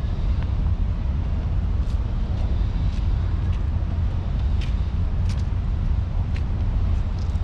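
Steady low rumble of distant road traffic, with a few brief high clicks scattered through.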